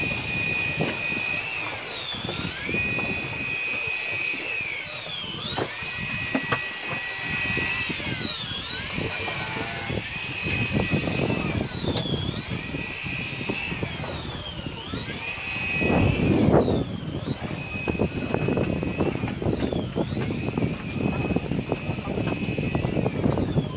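Electric fishing reel's motor whining as it winds in line on a hooked fish, its pitch sagging and recovering every few seconds as the load comes and goes. Wind and water noise rush underneath, swelling about two thirds of the way through.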